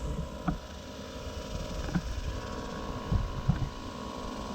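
Bee vacuum (Everything Bee Vac) motor running steadily on its low setting, a constant hum with faint steady tones, broken by a few brief low thumps.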